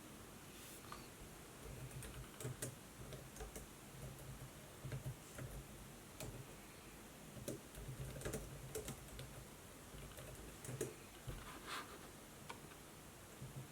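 Laptop keyboard typing: irregular keystrokes with soft key thuds, in uneven runs with short pauses.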